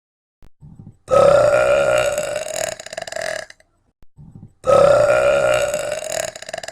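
A young woman burping on command: two long, deep, loud burps, each lasting over two seconds at a steady pitch, the first starting about a second in and the second about halfway through, each preceded by a few short faint sounds.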